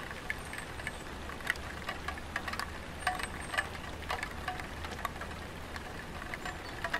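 Light rain falling on a tiled roof: irregular drops ticking and dripping, some with a brief ringing pitch, over a steady patter.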